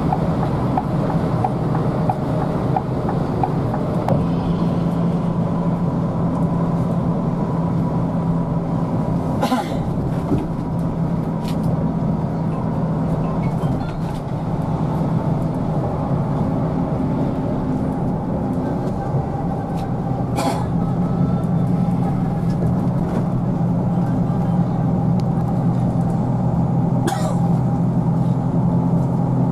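Cabin noise inside a Scania K360IB coach cruising on the highway at about 100 km/h: a steady engine drone mixed with road and wind noise. Three short sharp clicks or knocks sound about a third of the way in, two-thirds of the way in and near the end.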